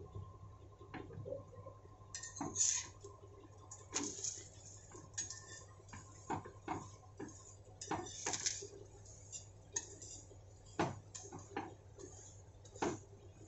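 Metal spatula and spoon scraping and tapping on a hot iron tawa as ghee is spread over a lachha paratha and it is pressed down, in irregular clinks and short scrapes.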